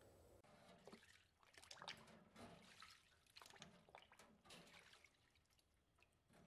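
Faint drips and trickles of cleaning liquid with a few light clinks as the ultrasonic cleaner's wire parts basket is handled in and lifted from its bath; otherwise near silence.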